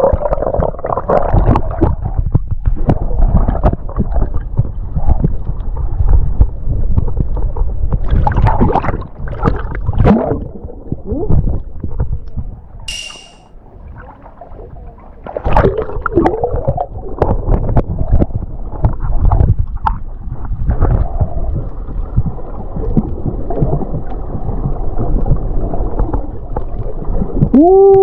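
Water sloshing and gurgling against a snorkeler's camera as it dips under and above the surface, a dense rumble with irregular splashes. Just before the end, a muffled rising 'whoa' from the snorkeler.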